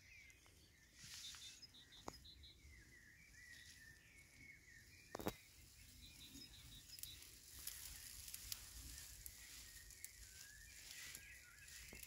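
Near silence of an open meadow: faint bird chirps, a low rumble, and a single sharp click about five seconds in.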